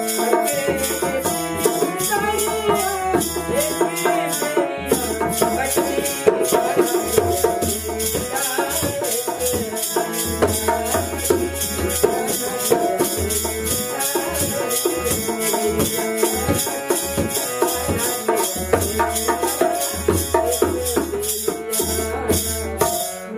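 Bhajan folk music played on harmonium, dholak drum and kartal: the harmonium holds the melody and chords, the dholak keeps a steady beat, and the kartal's wooden clappers and jingles shake in a fast, even rhythm.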